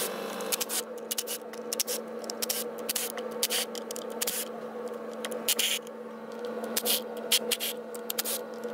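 Cordless Milwaukee M12 FUEL power tool running with a steady motor whine, with repeated irregular clicks and rattles as it spins E10 Torx bolts out of a plastic valve cover.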